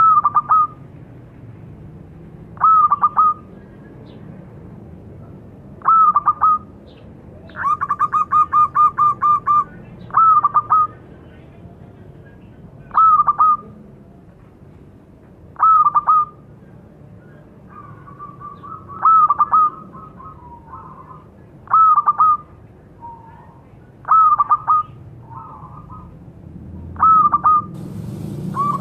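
Local zebra dove (perkutut) with a small, high voice calling: short bursts of quick cooing notes about every three seconds, with one longer run of rapid notes about eight seconds in.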